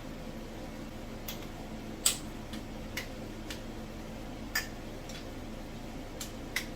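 Scattered sharp metallic clicks and taps of hand tools working the cylinder-head bolts, irregularly spaced, the loudest about two seconds in.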